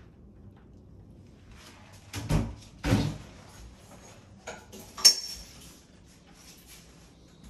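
Two dull knocks with a clattering tail about two and three seconds in, then a sharp click about five seconds in, among a few fainter ticks.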